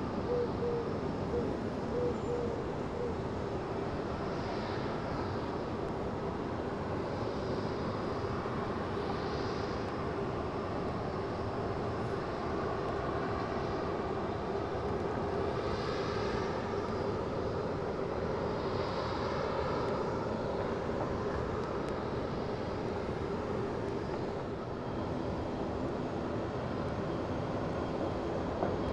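Boeing 747's four jet engines running steadily at taxi power, a continuous engine noise with a faint steady hum.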